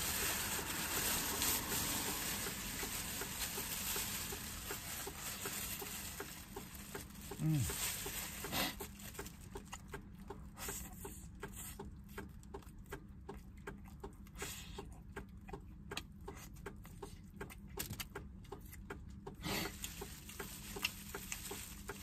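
Thin plastic bag crinkling as a braised chicken is handled in it, then wet chewing and lip-smacking clicks from about nine seconds in as the meat is eaten off the bone by hand.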